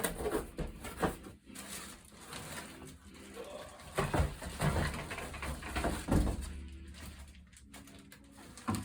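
Packaging being handled as drum toms and hardware are unpacked: irregular rustling, scraping and light knocks, with a few brief squeaky tones.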